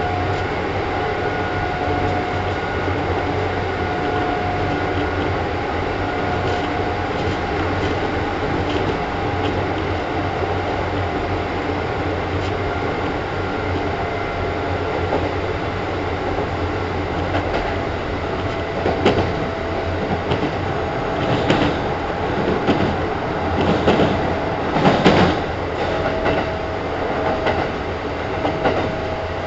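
Kintetsu 1010 series electric train running at speed, heard from inside the car: a steady rumble of wheels on rail with a steady motor whine over it. In the second half come bursts of wheel clatter over rail joints, loudest about 25 seconds in.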